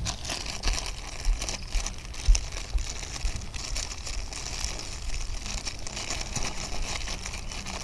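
Plastic packaging crinkling and rustling in the hands, a steady run of small crackles.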